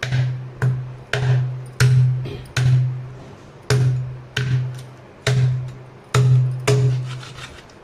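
A heavy knife chopping through a goat trotter on a plastic cutting board: about ten sharp blows at an uneven pace, each with a short, low thud.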